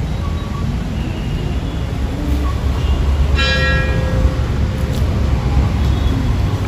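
Steady low rumble of street traffic. About three and a half seconds in, a single bright ringing tone, a bell or horn, sounds for under a second and fades.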